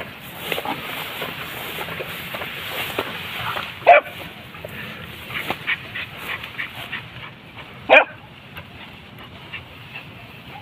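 Hunting dogs giving voice on a chase: two loud, short yelping barks about four and eight seconds in, with fainter yips in between.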